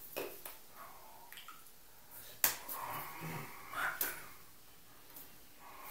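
Two sharp clicks, the first and louder about two and a half seconds in, the second about four seconds in, over a man's quiet talk in a small room.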